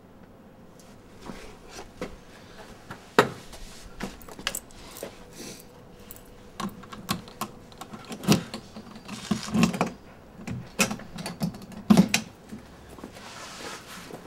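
Keys jangling and clicking at an apartment door lock, in a string of small rattles and sharp clicks, the loudest about three, eight and twelve seconds in.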